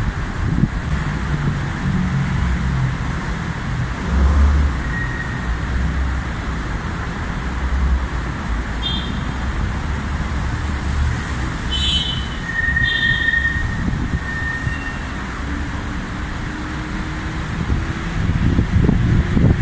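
Steady traffic rumble on an elevated busway as a Rapid KL battery-electric BRT bus approaches and pulls in close, getting louder near the end. A few brief high squeaks are heard in the middle.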